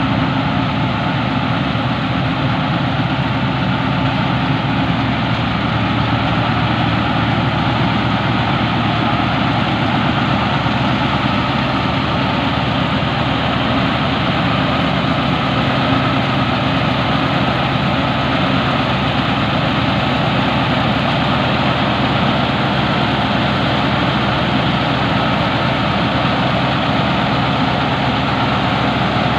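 Massey Ferguson 385 tractor engine running steadily under load, together with the tractor-drawn straw reaper it drives as it cuts wheat stubble into straw.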